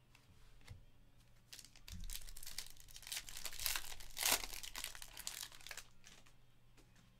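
Crinkling plastic and rustling card stock as trading cards are handled, a dense crackle that builds from about a second and a half in and peaks in a sharp crinkle about four seconds in before fading.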